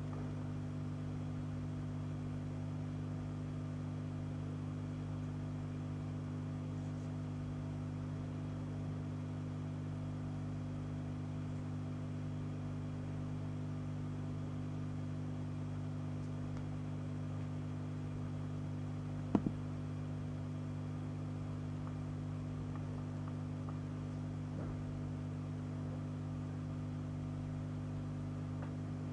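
Steady low electrical hum made of several constant tones, with one sharp click about 19 seconds in.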